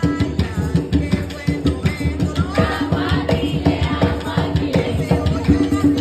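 Live Puerto Rican bomba: barrel drums and a cuá, a wooden tube struck with sticks, keep a fast, dense rhythm, with women singing a melody over it.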